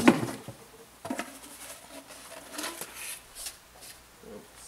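Unpacking a cardboard box: cardboard and packaging rustling and brief knocks as plastic tube parts of a blower-vacuum are lifted out, with one sharp knock right at the start that is the loudest.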